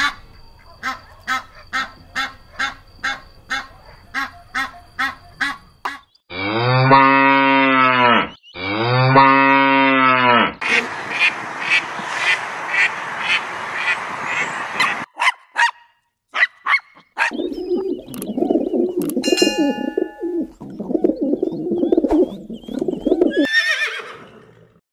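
Greylag geese honking, first a run of short calls about two a second, then two long drawn-out honks. Then a flock of mallard ducks quacking together. Then horses, with low rough sounds for several seconds and a short rising call near the end.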